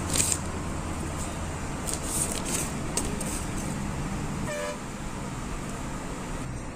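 Bus engine running with road noise, heard from inside the bus on a winding mountain road. A short horn toot comes about two-thirds of the way through.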